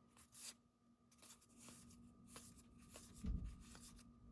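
Faint handling of baseball trading cards: soft swishes and light clicks as cards are slid and flipped against one another, with a duller thump about three seconds in, over a low steady hum.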